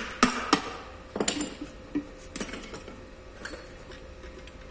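Hand tools and metal engine parts clinking and knocking together during an engine teardown: a quick run of sharp clinks in the first second and a half, then a few scattered ones, over a faint steady hum.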